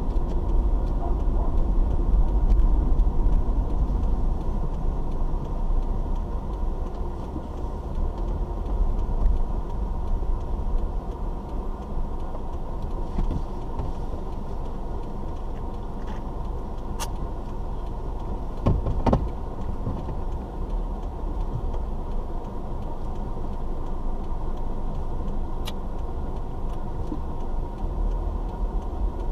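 Car engine and road rumble heard from inside the cabin, louder while the car is moving at first, then a quieter steady hum as it slows and creeps along in traffic. A few brief knocks come a little past the middle.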